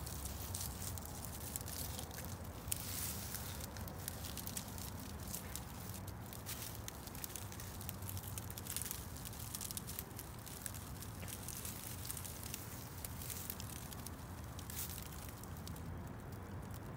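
Outdoor ambience: a steady low rumble with irregular soft crackling and ticking throughout.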